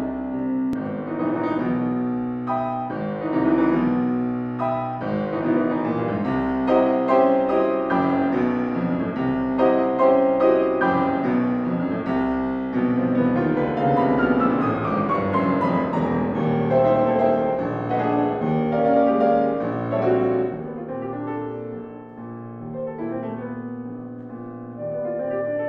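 Grand piano playing a solo interlude from the orchestral reduction of a saxophone concerto, with a long descending run in the middle before a quieter passage. Near the end the alto saxophone comes back in on a held note.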